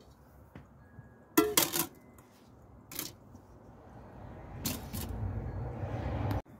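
Enamelled steel pot clanking against a ceramic bathtub as it is set down, a quick cluster of knocks about a second and a half in. A couple of lighter knocks follow, then a steady rushing noise that cuts off suddenly near the end.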